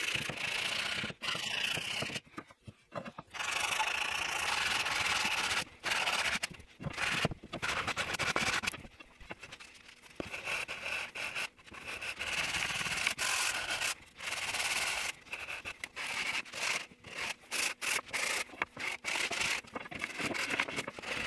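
Sandpaper and a sanding block rubbing over the edges of a maple wooden paddle in the final hand sanding: repeated scratchy back-and-forth strokes, broken by short pauses.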